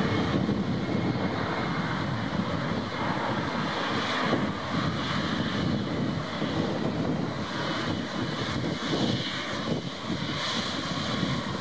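Boeing 777-300ER's GE90 jet engines running at low power while it taxis: a steady rushing noise with a faint steady whine.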